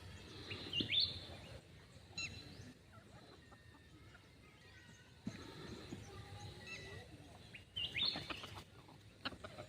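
Birds calling: a few short calls that rise in pitch, loudest about a second in and again near the end, with scattered chirps between.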